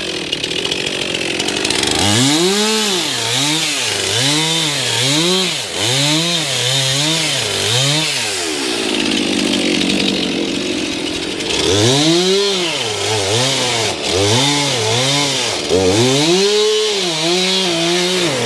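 Chainsaw cutting lake ice, its engine pitch rising and falling about once a second over a steady hiss. The rise and fall stops for a few seconds midway, then starts again.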